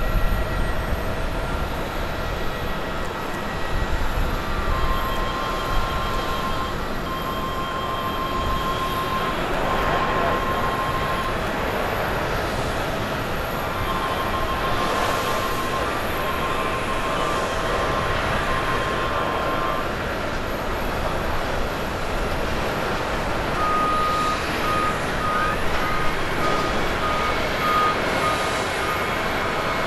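Steady engine noise with a ground vehicle's reversing alarm beeping in runs through the middle, then beeping steadily at a slightly higher pitch near the end.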